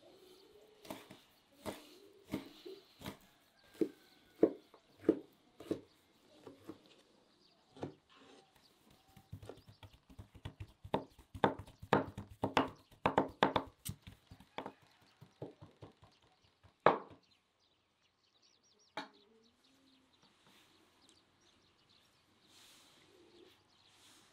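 Knife slicing and chopping raw animal fat on a wooden cutting board: single thuds about a second apart, then a fast run of chopping strokes, then two last lone strikes.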